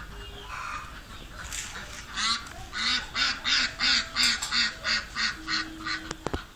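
Domestic fowl calling: a rapid run of about a dozen loud calls, roughly three a second, starting about two seconds in and stopping shortly before the end. A couple of sharp clicks follow near the end.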